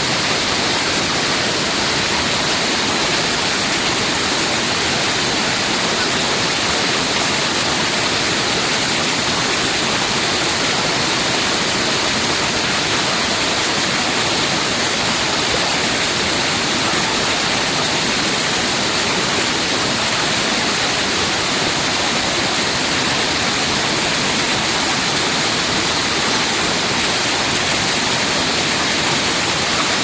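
Waterfall pouring over rocks into a pool below: a loud, steady rushing roar of falling water.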